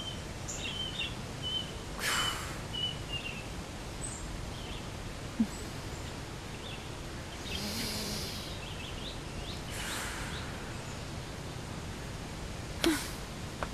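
Outdoor background ambience: a steady noise bed with faint bird chirps in the first few seconds and a few brief swishes spread through.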